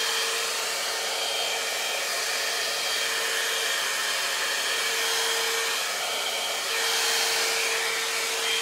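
Head Kandy Commitment Issues hot-air blow dry brush running steadily, blowing air through a section of hair wound on its barrel: a steady rush of air with a faint hum in it, a little louder and hissier about seven seconds in.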